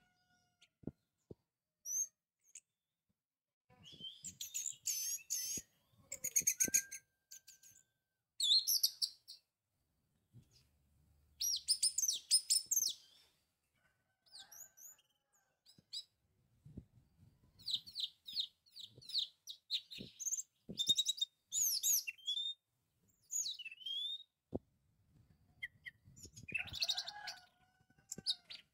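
Orange-headed thrush (anis merah) song: phrases of rapid, varied high whistles and trills, each a second or two long, with short pauses between them. A few faint knocks come through in between.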